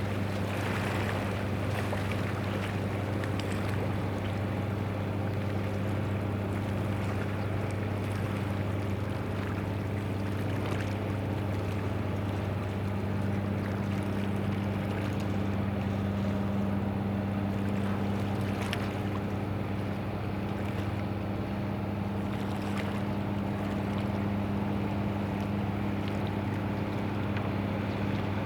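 Boat's Mitsubishi S6MB-MTK2 six-cylinder marine diesel running at a steady drone while the boat is underway, with a hiss of water and wind over it and a few faint splashes.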